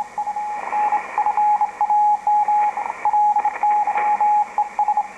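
Morse code on the 40-meter amateur band from a Drake 2-B tube ham receiver's speaker: a single steady beat tone keyed on and off in dots and dashes over receiver hiss.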